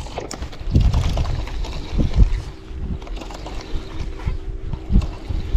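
Wind buffeting the microphone aboard a small fishing boat, with irregular low thumps of the boat on the water and a faint steady hum from about two and a half seconds in.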